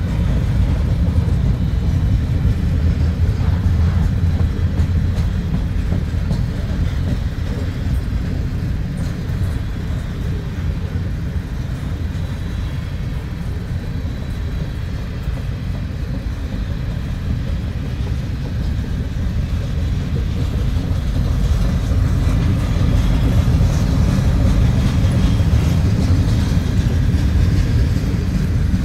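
Freight train of gondola cars rolling past, a steady low rumble of steel wheels on the rails that eases a little midway and swells again near the end.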